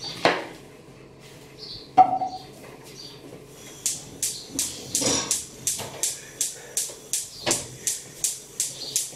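A sharp clink about two seconds in, then a steady run of light, sharp taps, about three a second, from about four seconds in.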